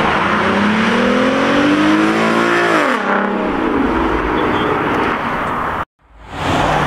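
Car engine revving hard as the car accelerates away, its pitch climbing for about two and a half seconds, then dropping off, over a loud hiss. The sound cuts out completely for a split second near the end.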